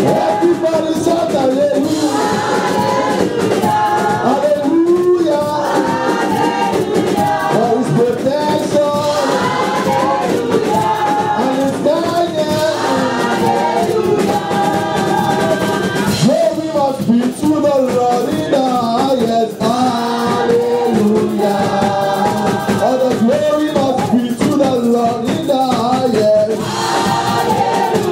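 Gospel worship team singing a praise song together, several voices on handheld microphones over live band accompaniment.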